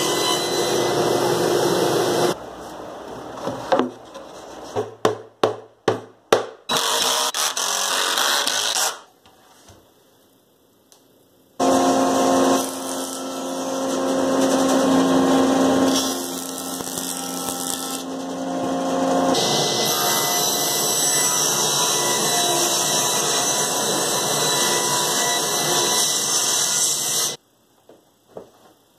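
Woodworking power tools running in turn, with hard cuts between them: a table saw cutting a plywood panel, a quick run of sharp knocks, then a jointer running and planing the edge of a board.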